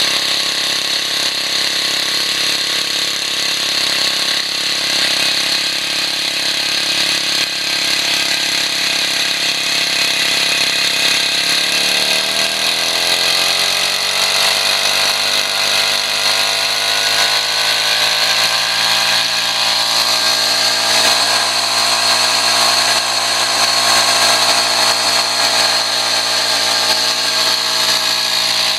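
Fuji Robin BH2500 brush cutter's small two-stroke engine running steadily, then about twelve seconds in speeding up gradually over several seconds and holding at a higher speed. The engine runs again after being repaired.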